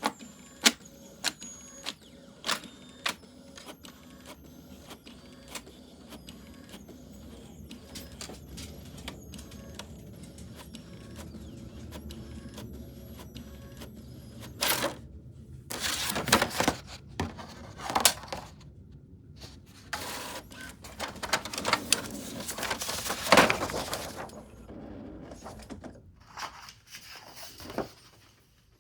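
A string of sharp, irregular clicks over a low steady hum, then bouts of paper rustling and crinkling from about halfway through.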